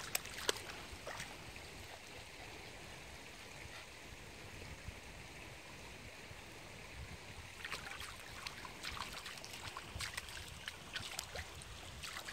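Shallow stream trickling steadily, with small splashes and clicks from a Pekingese wading through the water; the splashes come more often in the second half.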